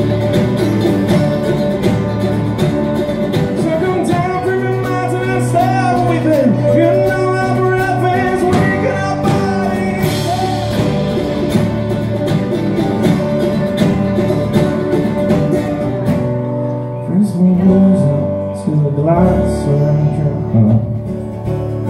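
Live folk-rock band playing an instrumental passage on strummed and picked acoustic strings (mandolin, acoustic guitar, banjo) over drums and bass. The sound is full and steady, and it thins out about sixteen seconds in.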